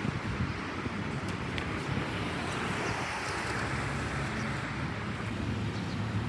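City road traffic: cars passing on a multi-lane street, a steady rush of tyres and engines. It swells as a car goes by about two to three seconds in.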